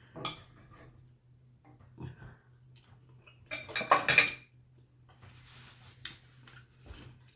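Cutlery clinking and scraping against a plate, a few separate clicks and then a louder cluster of clatter about halfway through, with softer scratching after it.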